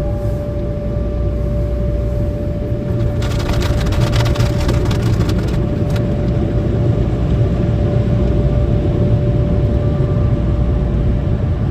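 Automatic car wash heard from inside the car: a steady low rumble of the wash machinery with a constant whine. From about 3 to 6 seconds a spell of water spray drums on the car body.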